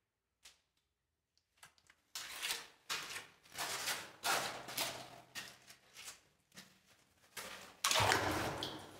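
Footsteps scraping and crunching on a gritty, sand-strewn concrete floor, starting about two seconds in at roughly one or two steps a second. The loudest, longest scrape comes near the end.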